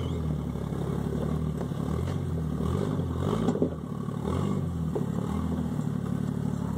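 Jeep Grand Cherokee ZJ engine crawling over rocks, revving up and dropping back again and again as the driver feathers the throttle, with a sharp knock about three and a half seconds in.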